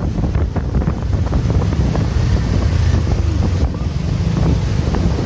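Wind buffeting the microphone over the steady low rumble of a passing bus.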